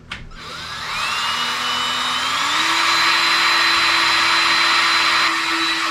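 Power drill with a mixing paddle spinning up, its whine rising over about two seconds and then running steadily while stirring epoxy resin and hardener.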